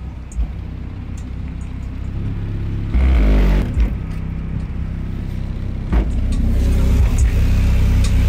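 Two Skar SVR 12-inch subwoofers in a ported box playing music with heavy, deep bass, heard from outside the vehicle. A hard bass hit comes about three seconds in, and the bass gets louder from about six seconds on.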